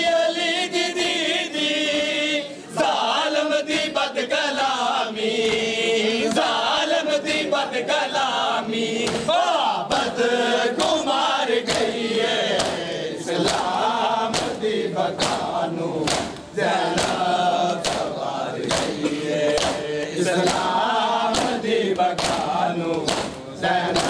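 A group of men chanting a noha, a Shia mourning lament, over matam: open-handed slaps on the chest falling in a steady beat.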